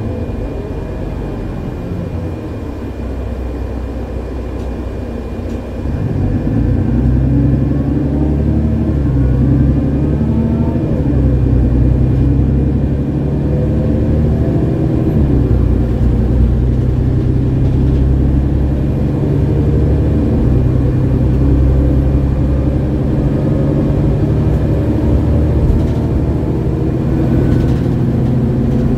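Mercedes-Benz Citaro G articulated bus with an OM906hLA six-cylinder diesel and ZF Ecomat automatic gearbox, heard from inside the passenger cabin while driving. About six seconds in the engine pulls harder and gets louder, then keeps running under load with its note rising and falling.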